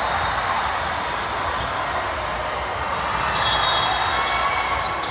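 Steady hubbub of a busy volleyball gym: many voices talking at once across the hall, with a short squeak of a sneaker on the hardwood court near the end.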